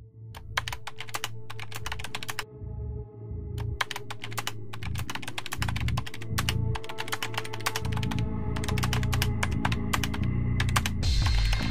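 Bursts of rapid keyboard-typing clicks, several runs with short pauses between them, over a low droning music bed with a held tone. A hiss swells in near the end.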